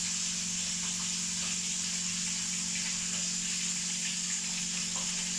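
Galunggong (round scad) frying in hot oil in a pan: a steady sizzle, with a low steady hum underneath.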